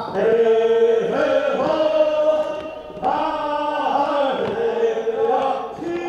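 Voices chanting a Korean funeral bier song (sangyeo sori) together, in long held notes that bend in pitch, with a new phrase starting about a second in and another about three seconds in.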